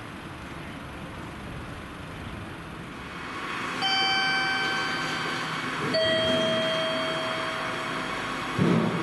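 Two-note electronic station chime: a higher note about four seconds in, then a lower note two seconds later, each held and fading, over steady platform noise. A short thump comes near the end.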